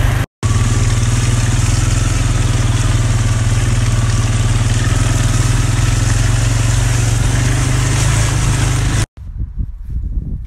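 A small vehicle's engine running steadily as it drives over dirt, with a rushing of wind and ground noise. It cuts off abruptly about nine seconds in, giving way to quieter rustling.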